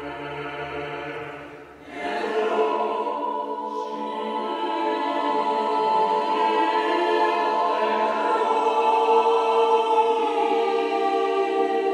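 Mixed chamber choir singing sustained chords. The sound thins and the low bass notes drop out just before two seconds in, then a fuller, louder chord enters and is held, slowly growing louder toward the end.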